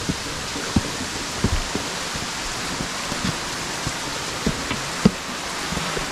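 Steady rush of water from small waterfalls, broken by a few short low thumps, the loudest about five seconds in.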